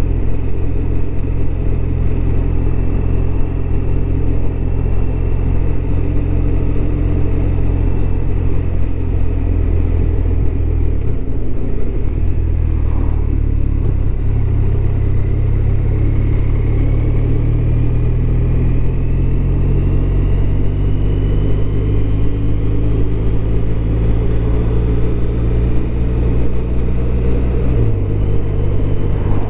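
BMW R1200RT's boxer twin engine running steadily on the move. The engine note changes about eleven seconds in and drops again near the end as engine speed changes.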